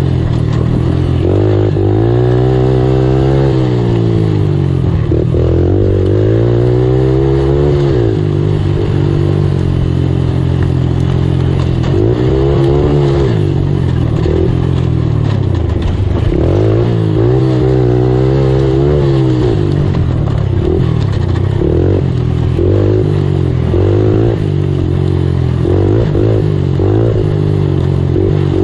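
Race ATV engine heard from on board, revving up and falling back again and again as the rider accelerates and backs off along the trail, with quicker, shorter revs near the end.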